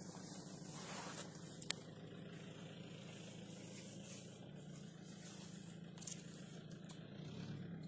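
Faint steady low machine hum, with a single sharp click about a second and a half in and light rustling.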